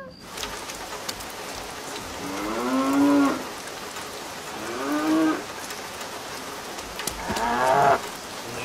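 A large farm animal calling three times, each a drawn-out pitched call about a second long, over a steady hiss with faint crackling.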